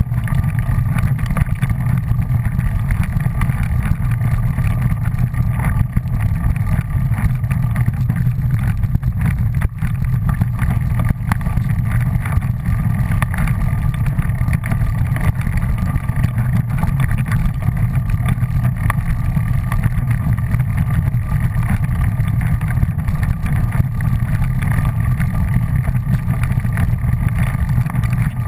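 A small engine running steadily at an even pace, a low drone with a thin, faint whine above it and no breaks.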